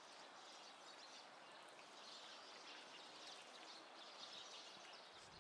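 Near silence: faint, steady outdoor background noise.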